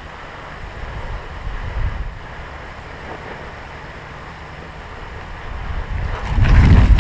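Low rumbling wind noise on the camera microphone, much louder from about six seconds in.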